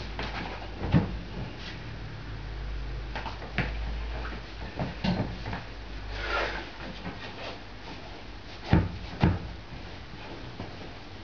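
Sharp knocks and clanks from an 80 kg barbell loaded with iron plates and the bench under it during heavy bench-press reps: about five knocks, the loudest two close together near the end. A short breathy rush of effort comes about six seconds in.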